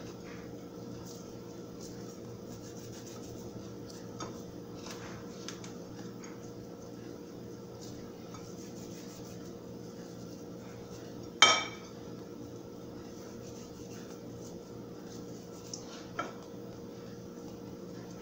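Light clinks and scrapes of a utensil against a glass mixing bowl while coating mix is stirred, with one sharp ringing clink about eleven seconds in and a smaller one about five seconds later, over a steady low hum.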